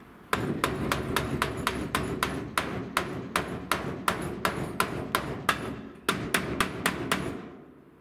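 Hammer blows on the cut edge of an Iveco Daily van's steel roof around the vent opening, knocking it flat against a thick steel plate held underneath as a dolly. A steady run of sharp metal strikes, about three a second, with a brief break near the end before a last handful of blows.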